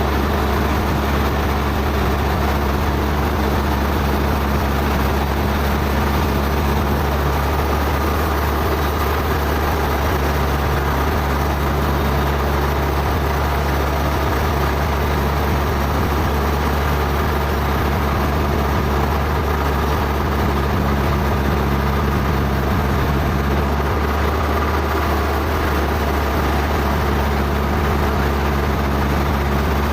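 Sawmill machinery running with a steady, unbroken engine-like drone: a deep hum and low steady tones over a rushing mechanical noise.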